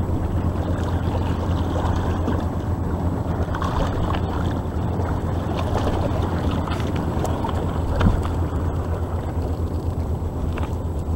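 Steady low rumble of wind buffeting the microphone, with small waves lapping against the rocks; a single short knock about eight seconds in.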